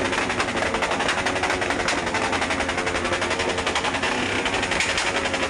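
Motorcycle exhausts revved hard, giving a loud, continuous rapid rattle of exhaust pulses with no let-up.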